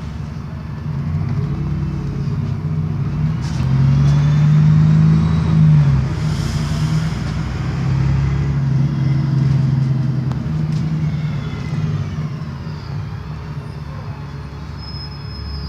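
Alexander ALX400 double-decker bus engine and transmission under way, heard on board. The engine pulls harder from about a second in and is loudest around four to six seconds in, with a higher whine rising and falling through the gears. A short hiss comes about six seconds in.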